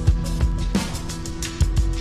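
Background music with a steady drum beat over held tones.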